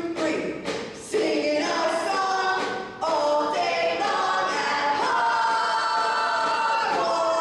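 Several voices singing a choir-like passage: short changing notes at first, then long held notes from about three seconds in.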